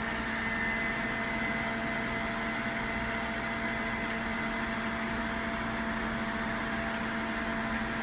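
A small electric motor or fan runs steadily, giving a hum with a hiss over it. Over it, diagonal cutters snip the leads of soldered capacitors, two faint sharp clicks about four and seven seconds in.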